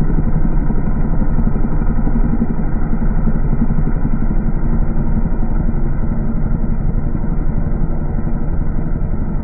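Paramotor engine and propeller running, slowed by slow-motion playback into a deep, steady rumble.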